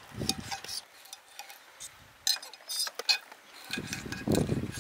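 Knife blade clicking and tapping against a stone cutting slab while garfish fillet is cut into chunks: scattered sharp clicks, several close together about two to three seconds in, with low muffled sounds near the end.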